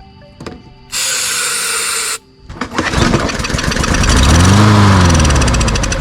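Starting fluid hissing from an aerosol can into the carburettor intake for about a second. Then the Hyper Tough push mower's small engine is pull-started, fires on the fluid, revs up and dies away. This pop test shows it has spark and compression, so the no-start is a fuel problem.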